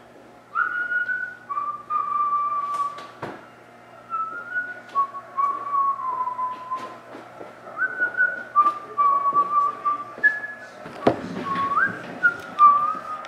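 A person whistling a tune, one clear note at a time, stepping up and down in pitch. About eleven seconds in there is a thump followed by rustling, as a cardboard box is set down on the table.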